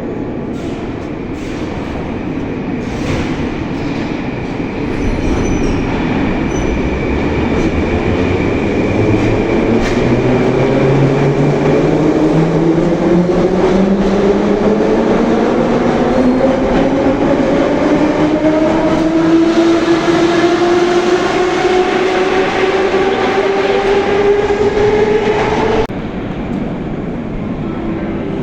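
Nomernoy-series (81-717/714) Moscow Metro train accelerating: the traction motors' whine climbs steadily in pitch over the rumble of wheels on rails, stepping up at first and then rising smoothly. It cuts off suddenly about four-fifths of the way through.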